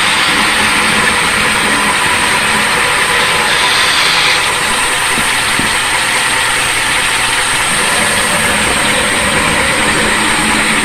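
Machinery running steadily and loudly, with a constant high whine over a low hum.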